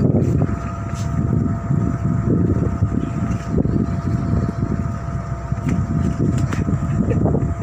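A tug boat's diesel engine running steadily: an uneven low rumble with a faint steady whine above it.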